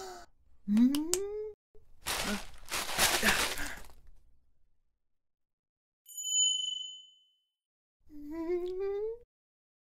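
A young man's rising, excited vocal 'ooh', then paper wrapping tearing open for about two seconds, a short bright chime, and near the end a rising, wavering hum.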